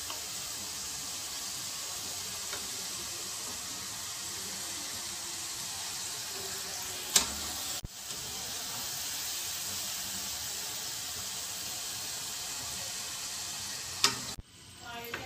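Potato finger chips deep-frying in hot oil, a steady sizzle. Two sharp knocks cut through it, about seven seconds in and near the end.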